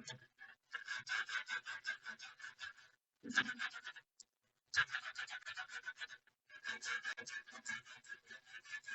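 A brush scrubbing a laptop motherboard, quick back-and-forth strokes several a second in four spells with short pauses, scrubbing detergent-sprayed corrosion from liquid damage off the board.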